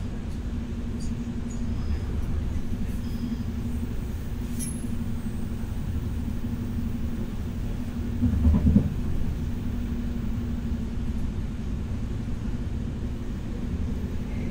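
Cabin noise of a Stadler FLIRT electric multiple unit running at speed: a steady low rumble of wheels on track with a constant low hum over it. About eight seconds in the rumble briefly swells louder and rougher for about a second, then settles back.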